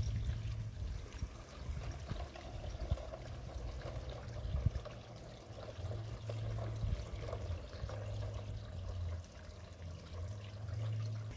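An LGB G-scale steam locomotive without a sound unit, so only its electric motor and wheels are heard, runs past on garden track pulling goods wagons. There is a low rumble that comes and goes, with small clicks from the wheels on the rails. Garden pond water trickles steadily underneath.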